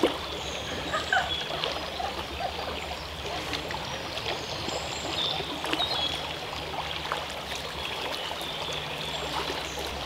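Shallow stream running steadily over stones, with light splashing as someone wades in.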